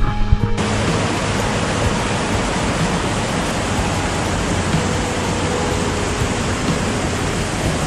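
Small jungle waterfall pouring into a rock pool: a steady, even rush of falling water that sets in abruptly about half a second in.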